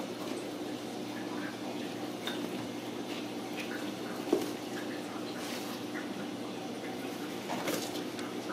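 Ragdoll kittens playing on a tile floor: scattered light clicks and scuffles of paws and a nylon play tunnel, with one sharper knock about four seconds in, over a steady low hum.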